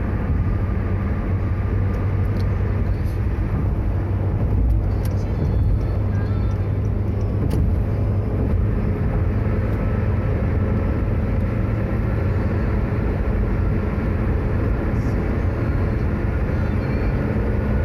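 Steady road and engine noise inside a car's cabin cruising on a toll highway: an even low hum with tyre noise over it.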